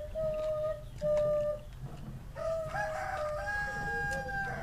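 A rooster crowing: two short, steady-pitched calls, then a longer crow from about halfway in that steps up in pitch and holds.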